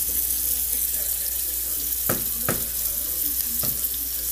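Steady hiss of pots cooking on a gas stove, a pot of spaghetti at the boil and a pan of onion and pepper frying, with three sharp knocks about two, two and a half and three and a half seconds in.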